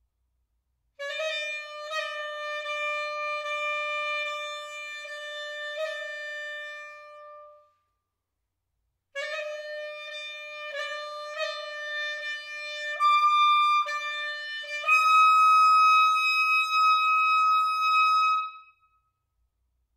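Solo clarinet playing fortissimo: a held note repeatedly re-articulated with quick grace-note flicks, then after a short rest a second phrase that leaps up an octave and ends on a long, loud high note that cuts off.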